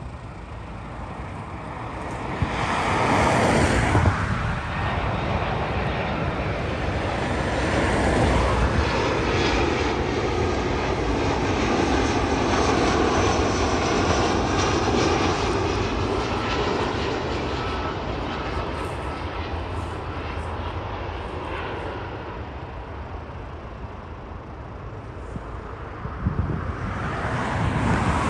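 Airbus A320-family airliner on low final approach, its twin jet engines building to a steady roar with a high whine through it, then fading as it passes beyond. A road vehicle goes by close about three seconds in, the loudest moment, and another approaches near the end.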